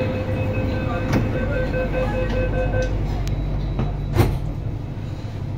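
Metro train door-closing warning: rapid repeated electronic beeping over the steady low hum of the car, stopping about three seconds in. A single sharp thump follows a little after four seconds.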